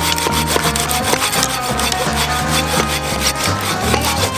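Coarse-tooth Silky Gomboy folding pruning saw cutting through a thick log, in steady back-and-forth strokes that rasp through the wood.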